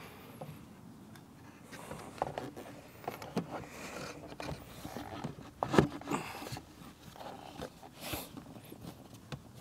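A plywood platform with a wooden leg is set down in a car's rear seat area and pushed into place. Scattered light wooden knocks and scrapes, with one louder thump about six seconds in.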